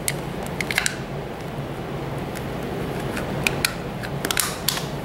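Small hard-plastic clicks and snaps as a cable junction box's cover is pressed and snapped shut over the connectors, several short clicks with a cluster near the end.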